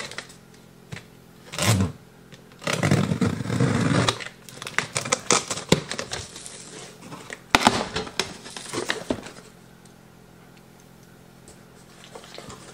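Cardboard box being opened: a knife slitting the packing tape, then the flaps pulled apart with rustling, scraping cardboard and sharp clicks. Quieter in the last few seconds.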